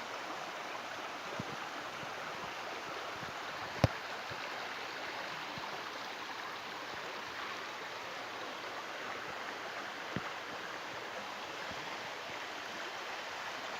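Stream water rushing steadily. A sharp click sounds once about four seconds in, with a fainter one about ten seconds in.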